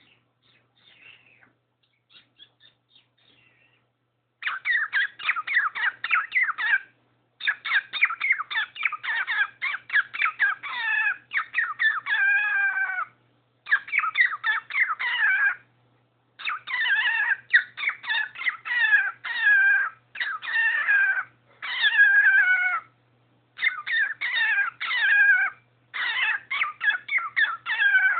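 Cockatiel making repeated funny calls: faint at first, then from about four seconds in, loud phrases of rapid stuttering pulses and falling warbles, each one to three seconds long with short pauses between.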